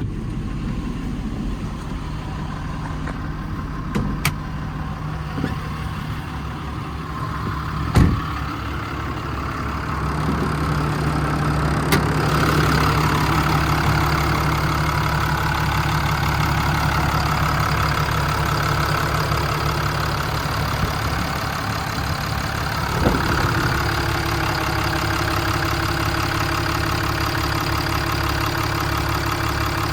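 Cummins 6.7 turbo-diesel idling steadily, a little louder from about a third of the way in. A few sharp clunks are heard over it, the loudest about eight seconds in.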